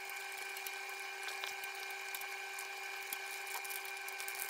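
A faint steady whine with a high hiss underneath, and a few light ticks of a wire whisk against the steel pot as malt extract is stirred in.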